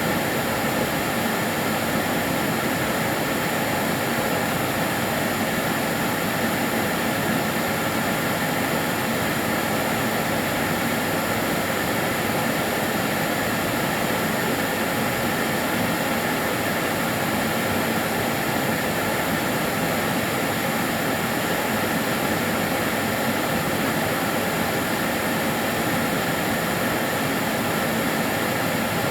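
Kärcher DS 6 Premium water-filter vacuum cleaner running steadily: an even, unbroken motor and airflow noise with a faint whine, neither rising nor falling.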